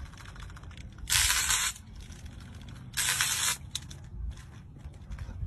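Fishing reel's drag buzzing in two short bursts, about two seconds apart, as a hooked fish pulls line off against it, over a steady low rumble.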